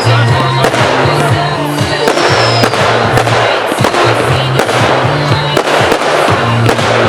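Fireworks banging and crackling in quick succession over loud music with a repeating bass line.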